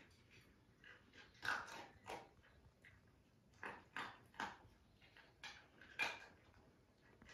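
Sleeping puppies making short squeaks and snuffles in their sleep, several scattered sounds a second or so apart.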